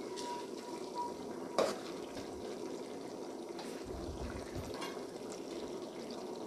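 Chicken and tomato sauce simmering and sizzling in a metal pot while a perforated metal spoon stirs it, with one sharp clink of the spoon against the pot about one and a half seconds in and a few lighter scrapes and ticks after.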